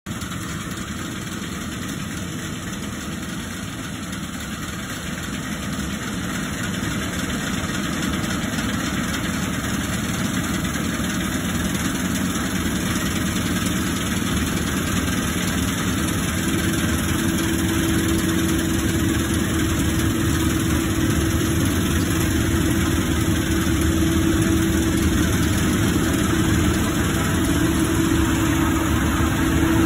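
Massey Ferguson 9695 combine harvester running as it cuts wheat, growing steadily louder as it approaches, with a steady hum that strengthens in the second half.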